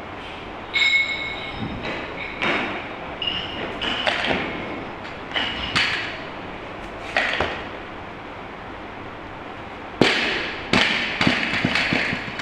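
Barbell loaded with 45 kg of bumper plates being worked from the platform: a series of knocks and metallic clinks, some with a short ring from the plates and sleeves. A pause, then a quick cluster of clinks near the end.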